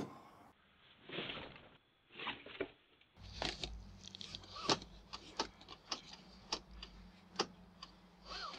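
Handling sounds in a car: a cardboard box set on the passenger seat, then a run of irregular sharp clicks and knocks over a low steady hum that starts about three seconds in.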